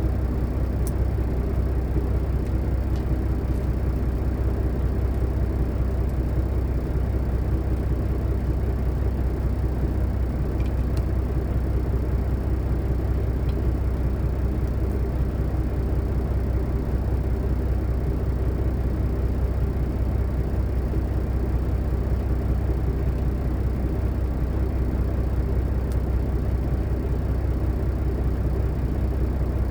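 Steady low drone of a diesel engine idling, used as a white-noise background, with a few faint ticks over it.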